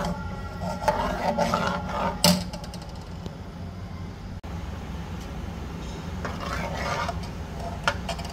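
Metal spoon stirring thick chicken chilli gravy in a metal pot, scraping and knocking against the pot's sides and bottom in short spells, with a sharp clink about two seconds in. A steady low hum runs underneath.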